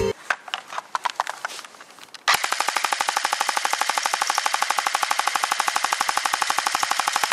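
Real Sword Type 56 electric airsoft gun, with a shop-customised gearbox, firing. A few scattered shots come first, then about two seconds in a long, fast, even burst of full-auto fire.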